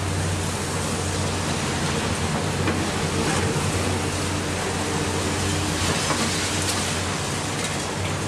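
Heavy diesel engines of large demolition excavators, including a CAT 374F long-front, running steadily under an even noisy hiss and rumble of demolition work, with a few faint knocks.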